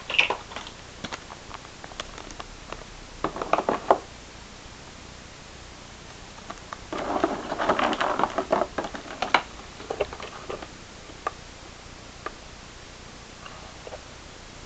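Hands handling plastic packaging: clear plastic wrapping crinkling and rustling, with scattered clicks and knocks as parts are lifted out of a moulded plastic tray. The longest stretch of crinkling comes a little past the middle, with shorter bursts near the start and around four seconds in.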